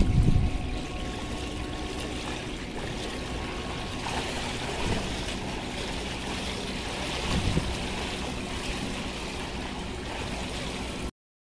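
Swimming-pool water splashing and lapping as swimmers kick and stroke, louder for the first half-second and then an even wash of water noise with a couple of soft swells. It cuts off suddenly near the end.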